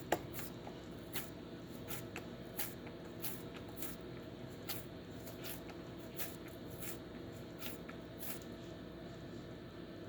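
Rolling pin rolling out oiled roti dough on a board: faint, soft sticky clicks, about one or two a second, that stop about eight seconds in.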